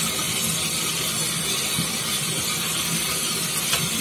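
Kitchen tap running steadily, the stream splashing over a piece of pink salmon being rinsed by hand in a stainless steel sink.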